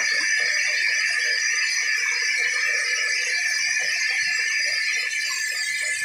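Sawmill band saw running and cutting through a teak slab: a steady high-pitched hiss and whine from the blade in the wood.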